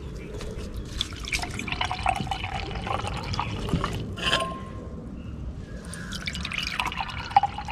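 Carbonated apple lemonade poured from a glass jug into a glass tumbler, splashing and fizzing as it fills. The pouring pauses after about four seconds, with a short knock, then starts again into a second glass near the end.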